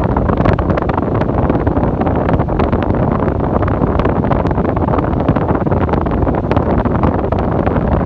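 Arno Ultra Silence Force electric fan running, its airflow blowing on the microphone as a steady, loud rush of wind noise, with scattered faint clicks.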